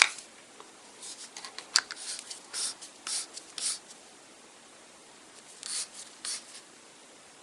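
A Wheeler F.A.T. screwdriver-style torque wrench being handled and adjusted, its handle pulled and twisted to step the setting: short scraping clicks in a cluster, then two more a couple of seconds later.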